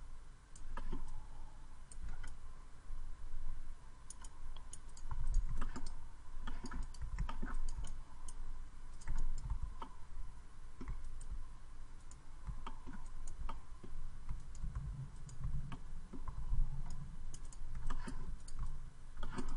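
Irregular clicking of a computer mouse and keyboard keys, with low desk thuds, over a faint steady hum.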